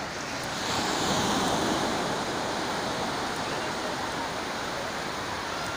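Sea surf washing onto a sandy beach, a steady rush of noise that swells about a second in as a wave breaks.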